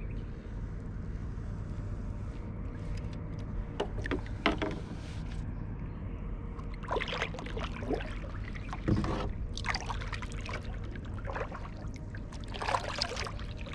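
Water splashing and dripping beside a kayak in a series of short, irregular splashes, over a steady low rumble.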